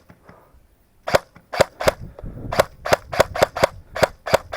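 Airsoft guns firing BBs: about ten sharp snapping shots in quick, irregular succession, starting about a second in.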